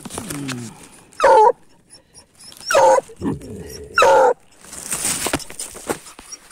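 Hunting dog barking three loud, short barks about a second and a half apart, with lower falling whines between them, baying at a paca holed up in its den.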